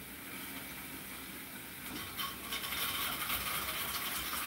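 Hand-cranked Saladmaster food processor turning and cutting zucchini into a pan: a mechanical ratcheting rattle of the turning cone and crank, which gets louder and busier about two seconds in.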